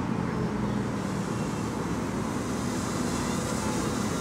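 Strong wind buffeting the microphone, a steady low rumble, with the faint steady buzz of a small electric octocopter's rotors.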